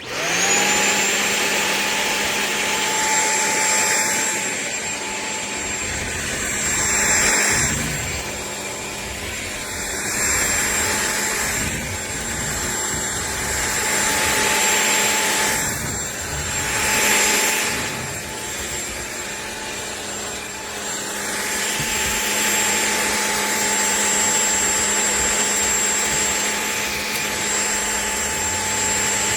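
Shark PowerDetect corded stick vacuum switched on: its motor spins up to a steady whine within about a second, then runs steadily. The suction noise swells and dips in loudness every few seconds.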